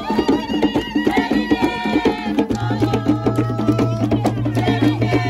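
Kavango traditional hand drums played in a fast, steady rhythm, with voices singing along. A steady low hum comes in about halfway.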